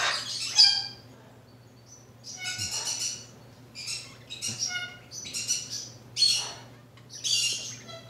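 Macaw giving a series of short, high squawks, about one every second, with brief pauses between them.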